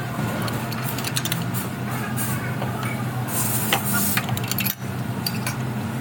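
Workshop mechanical sounds: scattered metallic clicks over a steady low hum, with a hiss lasting about a second a little past the middle.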